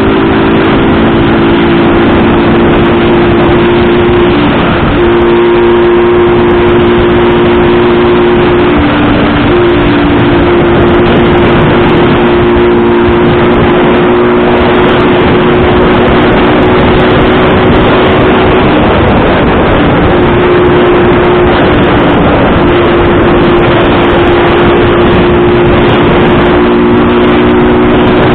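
Motorcycle engine running at a steady speed, its pitch stepping now and then, under loud rushing wind noise on the microphone.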